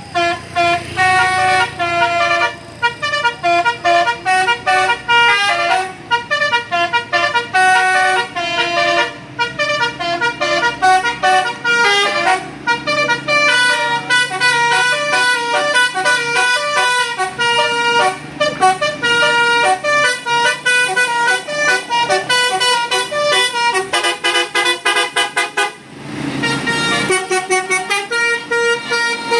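Bus basuri horn, an Indonesian multi-tone 'telolet' horn, playing a fast melody of short high notes over and over. The tune breaks off briefly near the end, then starts again.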